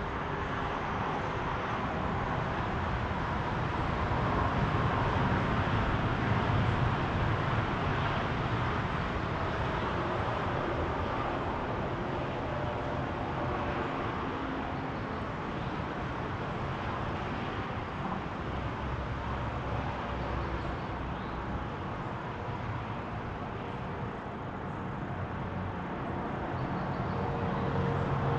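Steady road traffic noise: a continuous hum of tyres and engines that swells as vehicles pass, a few seconds in and again near the end.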